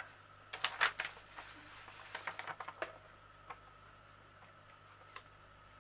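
Protective release sheet of a diamond painting canvas rustling and crinkling as hands lift and lay it back over the adhesive, in a quick run of crackles over the first three seconds, then a couple of single light ticks.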